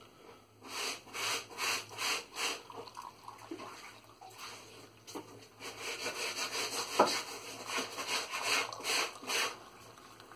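Freshly filtered coffee poured from a white jug into cups: a steady trickling stream through the second half, with one light knock partway through. Before the pour, a short run of quick breathy strokes.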